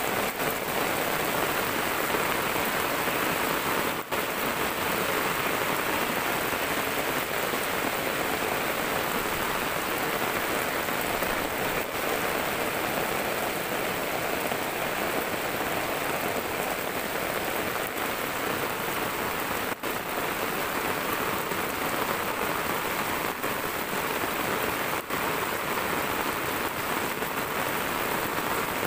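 Steady heavy rain falling on a flooded dirt road, an even hiss of rain on the sheet of muddy runoff water and the wet ground.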